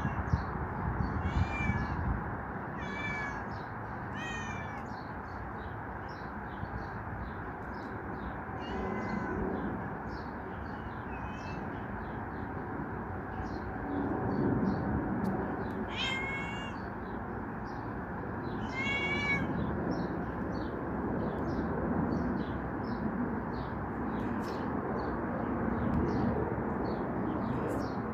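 A cat meowing repeatedly, with small birds chirping, over a steady low rumble.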